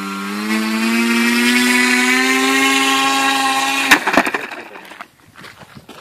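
An RC flying-wing plane's propeller motor running up, its whine rising steadily in pitch for about four seconds. Then a sharp crack cuts it off, followed by a few scattered knocks.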